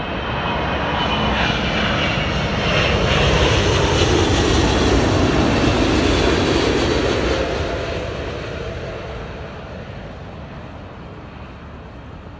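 Four jet engines of an Etihad Airbus A380 on landing approach, passing low overhead. The sound grows louder to a peak in the middle, with a high whine falling in pitch about two seconds in, then fades as the plane moves away toward the runway.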